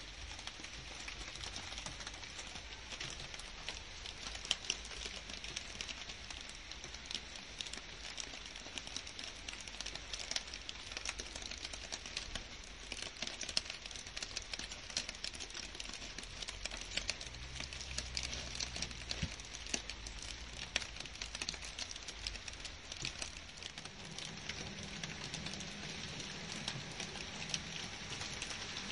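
Steady rain falling on garden shrubs, grass and leaves: an even hiss dotted with many small drop ticks. A low rumble comes in underneath during the second half and grows toward the end.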